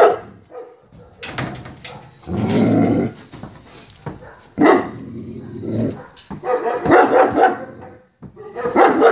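German shepherd barking in repeated loud bouts, with growl-like and whining tones mixed in.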